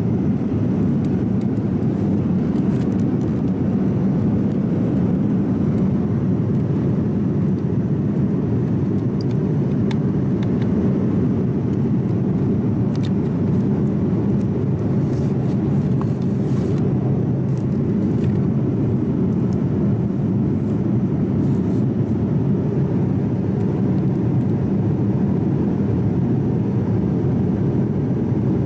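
Steady cabin noise of a Boeing 787-10 in flight, the constant low rush of airflow and engines heard from an economy seat, with a few faint clicks.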